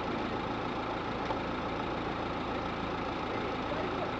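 An engine idling steadily, a constant low hum with no changes.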